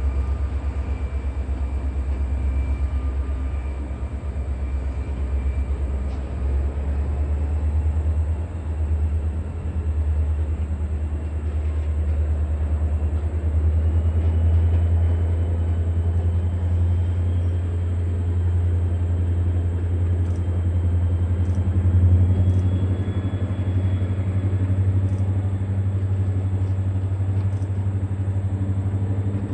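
EMD diesel locomotive of a passenger excursion train running, a steady low engine rumble. A thin whine rises slowly in pitch through the second half.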